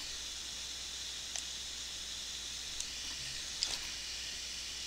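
Steady microphone hiss and low hum, with a few faint, scattered clicks from working a computer keyboard and mouse.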